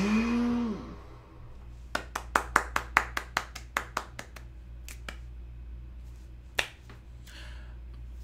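A person clapping hands lightly, about a dozen claps at four or five a second, then one more single clap a little later.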